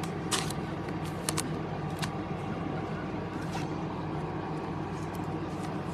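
Trading cards being handled and slid past one another by hand: a few brief soft swishes and clicks over a steady low background hum.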